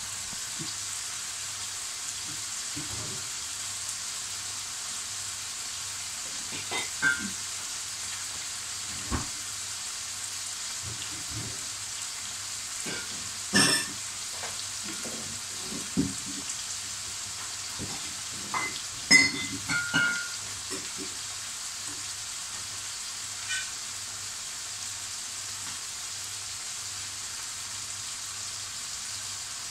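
Liver and vegetables sizzling steadily in a frying pan with a little water and vinegar in it, with a few short clinks and knocks scattered through the middle, as of a utensil against the pan.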